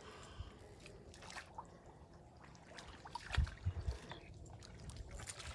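Faint trickling and small splashes of shallow, muddy canal water stirred by hand, with a few low thumps a little past halfway.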